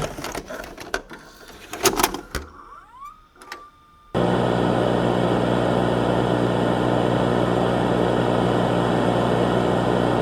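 Ambient sound effect: crackling and clicking with a short whistle that rises and then holds steady. About four seconds in, a steady humming hiss starts suddenly and runs on until it cuts off abruptly near the end.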